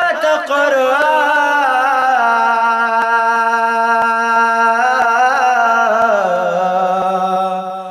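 A man singing a Balti qasida in a long, ornamented line: wavering notes at first, then one long held note that steps down to a lower held note about six seconds in and fades near the end.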